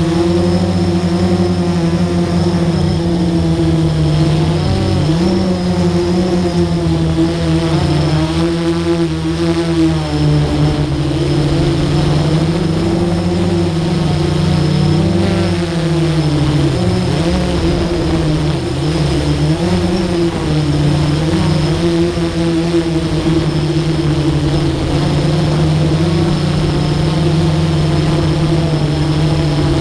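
Motors and propellers of a camera-carrying model aircraft, heard from its onboard camera: a steady hum of several pitches that waver down and up several times during the flight.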